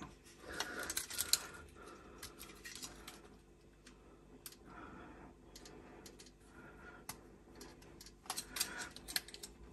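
Light clicks and plastic handling noise from small plastic parts being worked by hand: thin tubes being pushed into the push-fit connectors of a plastic SureStop remote stop-tap switch. The clicks are scattered, with a small cluster near the end.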